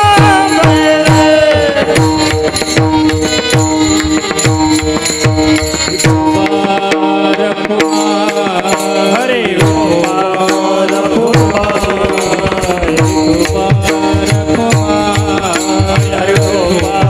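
Marathi kirtan music: devotional singing of a panchapadi over a held drone, with a hand drum whose deep strokes slide down in pitch. The drum drops out briefly near the middle.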